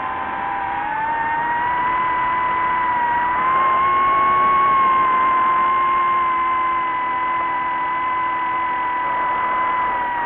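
DJI FPV drone's motors and propellers whining steadily in flight, the pitch rising a little about a second in and again around four seconds, then easing down near the end.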